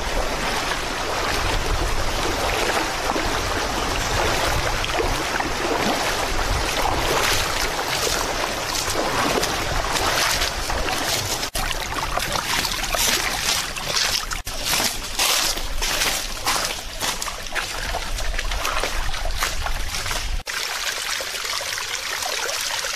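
Water of a shallow rocky stream running and trickling over stones, with a low rumble underneath that drops away near the end.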